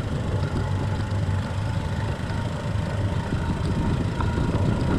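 Motorcycle engine running steadily while riding, a low even drone mixed with road and wind noise.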